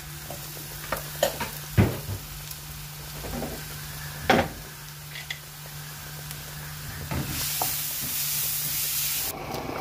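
Minced garlic sizzling as it fries in oil in a nonstick pan, with a few knocks of a wooden spoon against the pan as it is stirred. The sizzle grows louder near the end as the garlic is stirred and spread across the pan. A steady low hum runs underneath.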